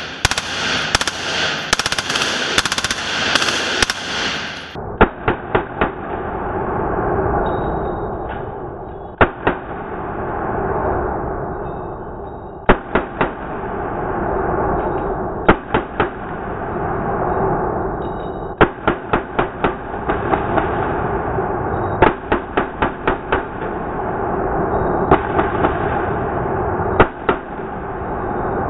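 Fully automatic M4 carbine firing 5.56 rounds in a reverberant indoor range, with shots cracking in quick succession. About five seconds in the sound turns duller, and short bursts of several shots alternate with long booming echo swells.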